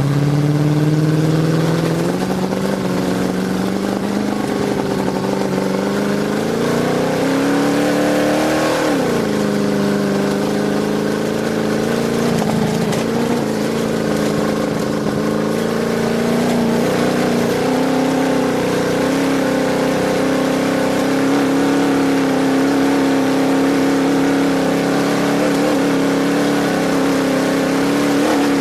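Desert race truck's engine running hard at speed, heard from on board: its pitch climbs for several seconds, drops sharply about nine seconds in, then holds fairly steady.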